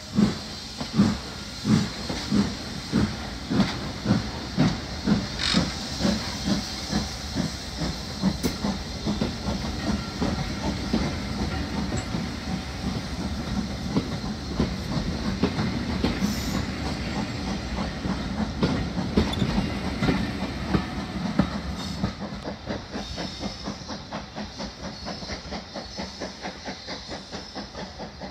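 BR Class 4MT steam locomotive pulling away with its coaches: exhaust chuffs, at first about one and a half a second, quicken steadily over a hiss of steam. In the last few seconds the beats come faster and fainter as the train draws away.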